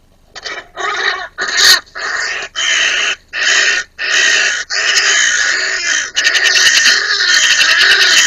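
Hooded crows giving loud, harsh calls while two of them fight on the ground, perhaps over territory. The calls come one after another about every two-thirds of a second, then run together into near-continuous calling about six seconds in.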